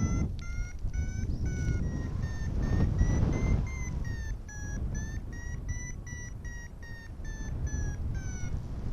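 Paragliding variometer beeping rapidly, about two to three beeps a second, its pitch rising over the first couple of seconds and falling again before the beeps stop near the end: the climb tone that signals the glider rising in lift. Wind rumbles on the microphone underneath.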